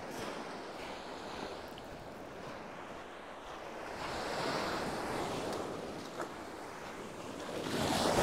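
Small sea waves breaking and washing up the beach, a steady surf hiss that swells as a wave breaks about four seconds in and again near the end.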